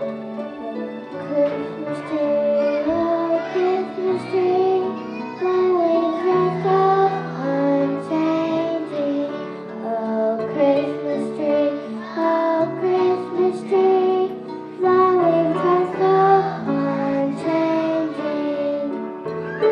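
A group of young children singing together over instrumental accompaniment.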